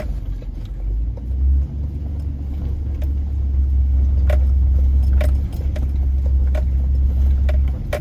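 Four-wheel-drive vehicle crawling over a rutted, potholed dirt road, heard from inside the cab: a steady low rumble of engine and tyres that swells in the second half, with scattered knocks and rattles as it jolts over ruts and holes.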